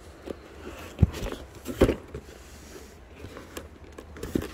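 Cardboard boxes being handled and shifted: two thumps about a second and two seconds in, with lighter taps and scraping of cardboard around them.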